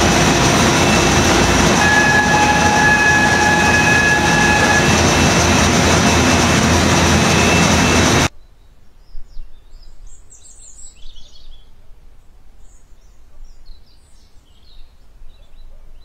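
Loud, steady mechanical noise of industrial egg-handling conveyor machinery, with a high whine from about two to five seconds in. It cuts off suddenly about eight seconds in, leaving quiet with faint bird chirps.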